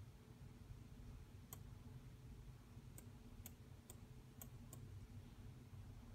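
Faint computer mouse clicks: six short, sharp clicks at uneven intervals between about a second and a half and five seconds in, over a low steady hum.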